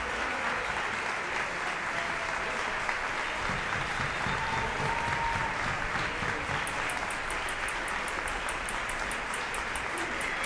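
Audience applauding steadily. About two-thirds of the way through, a quick, regular high ticking joins in, about four ticks a second.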